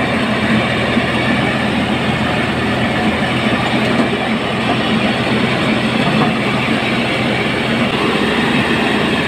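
Mobile truck-mounted rice mill running steadily under load as it mills palay, hulling off the husks: a loud, even mechanical din with a steady engine hum beneath it.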